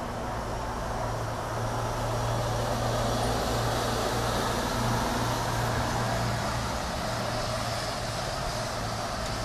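Steady, distant engine rumble with a low hum underneath. It swells gently over the first few seconds and eases slightly near the end.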